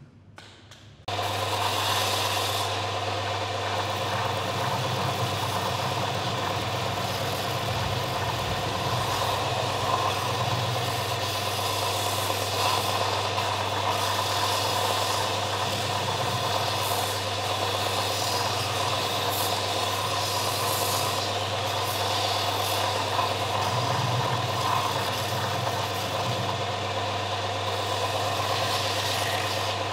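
Bench belt-and-disc sander with a 100 × 914 mm belt running steadily, its motor humming under the hiss of a wooden piece being sanded on the abrasive belt. It starts abruptly about a second in.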